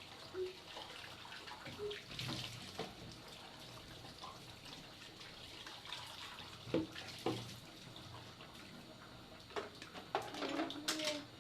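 Tap water running into a sink, with scattered clinks and knocks of things being handled in it, and a cluster of louder knocks near the end.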